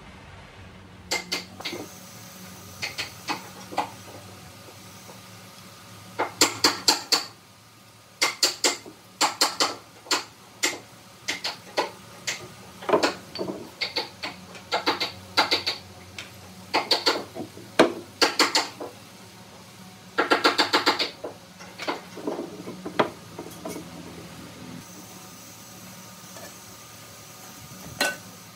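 Hammer tapping on hardwood moulding pieces to seat them, in quick runs of several light strikes with short pauses between.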